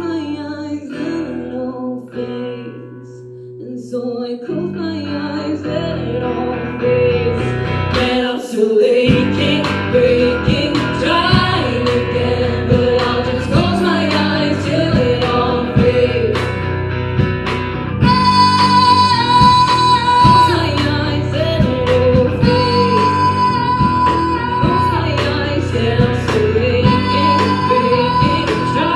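Live rock band playing a song: female lead vocals over semi-acoustic guitar, electric bass and drums. It opens sparse and quieter, drops out briefly about nine seconds in, then the full band comes in, with long held high sung notes from about eighteen seconds.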